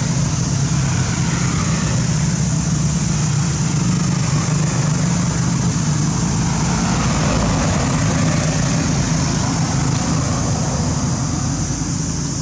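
A motor engine running steadily, giving a low, even hum that holds level throughout.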